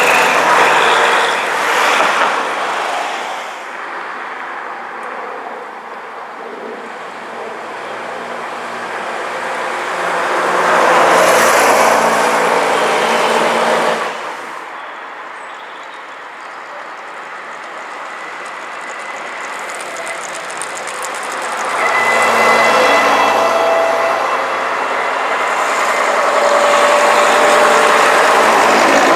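Double-decker buses and cars driving past one after another, each pass a swell of engine and tyre noise that rises and fades. The loudest passes come at the start, about 11 seconds in, and from about 22 seconds to the end, where a bus engine's steady drone is heard.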